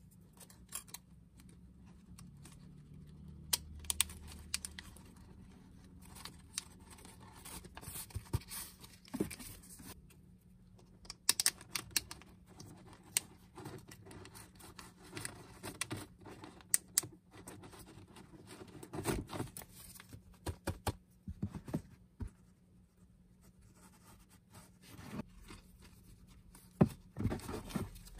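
Handling noise from 3D-printed plastic mask clips being fitted onto a folded paper towel: irregular sharp plastic clicks and snaps with soft paper rustling in between.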